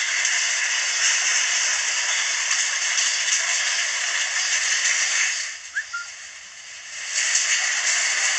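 Steady rushing hiss of a muddy flash flood pouring through a village. The rush falls away for about a second and a half past the middle, with a brief faint chirp in the lull, then comes back.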